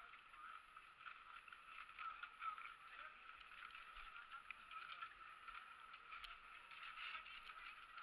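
Near silence: faint, muffled background noise with a few light clicks.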